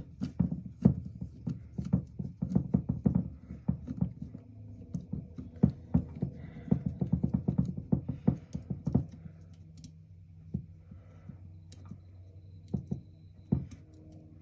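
Quick, irregular clicking and knocking of a screwdriver and small metal parts against a carburetor body as a loosened screw is backed out. The clicks come thick and fast for about nine seconds, then thin out to a few taps.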